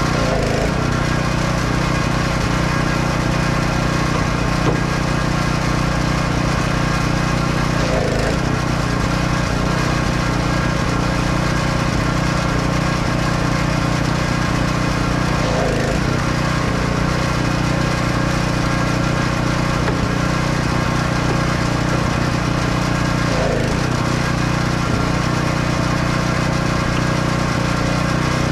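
An engine running steadily at a constant speed throughout, with a slight change in tone about every eight seconds.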